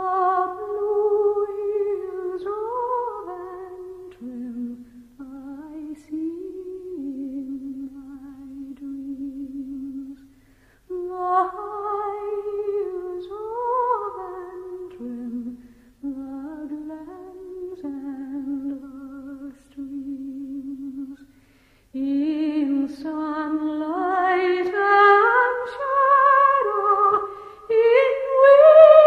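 A solo voice humming a slow, wordless melody with vibrato on the held notes, the same phrase twice, then a rising phrase near the end where the sound grows fuller.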